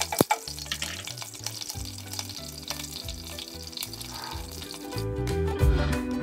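Whole spices (cumin seeds, cinnamon, cardamom and cloves) sizzling and crackling in hot oil in a pot, with one sharp knock just after the start, under background music that grows louder near the end.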